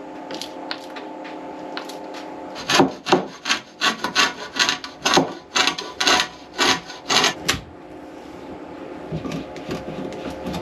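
Rhythmic rasping strokes, roughly two to three a second for about five seconds, from work on a length of rubber marine exhaust hose. A steady hum is heard before the strokes begin.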